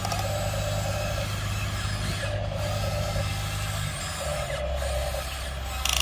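Small electric motors of radio-controlled toy excavators whirring in short on-off runs as the booms and buckets move, over a steady low hum that drops in pitch about four seconds in.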